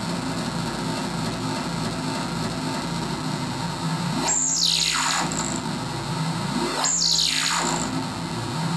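Hand-built circuit-bent analog noise synth sounding a noisy buzzing drone over a low steady tone as its knobs are turned. Twice, about four and seven seconds in, a steep sweep falls from very high to low pitch.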